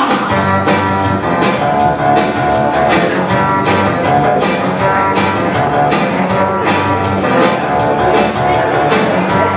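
Upbeat pop-rock music without vocals: guitar over a steady drum beat.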